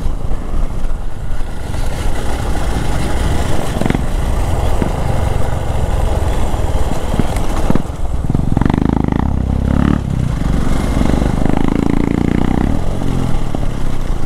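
Single-cylinder motorcycle engine running while the bike is ridden over a rough dirt trail, with rumble and occasional knocks from stones and ruts. The engine note gets louder for several seconds in the second half.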